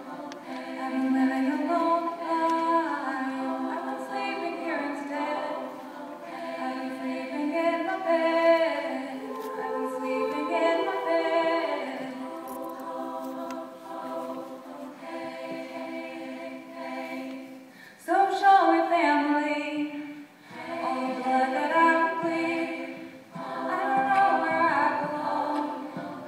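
All-female a cappella group singing wordless backing parts in layered, sustained chords. About two-thirds of the way through the voices come in suddenly louder, with a rising slide.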